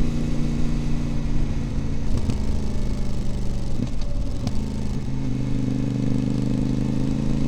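Voge DS 800 Rally's parallel-twin engine through a Scorpion Serket slip-on silencer with the baffles removed, running straight through, recorded close to the silencer while the bike cruises steadily. The note briefly dips about halfway through, then settles back to a steady drone.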